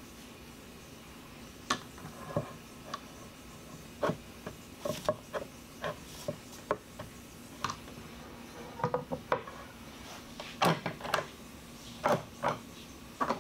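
Irregular knocks and clicks of walnut boards and bar clamps being handled during a glue-up: boards pressed and shifted against the clamps, then clamp handles tightened, with some rubbing of wood on wood. The knocks come thicker and louder over the last few seconds.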